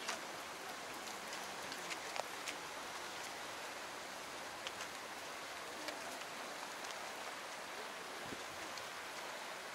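Steady rushing hiss of running stream water, with scattered faint light clicks.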